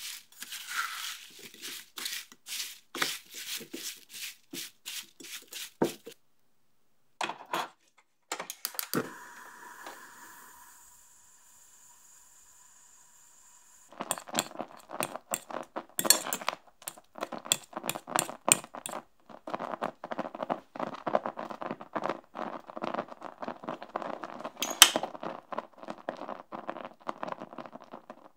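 Chopped, sugared strawberries stirred with a spatula in an enamel saucepan: wet, sticky clicks and squelches. After a few seconds of faint steady hiss, the strawberry puree simmers with dense bubbling and popping.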